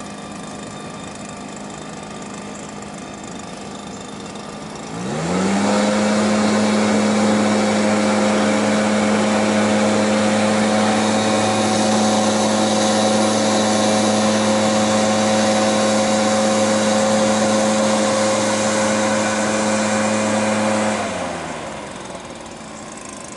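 Petrol-powered blower engine used as a canoe's thrust source, idling, then opened up to full throttle about five seconds in. It runs steady at high speed for about sixteen seconds, then drops back to idle near the end.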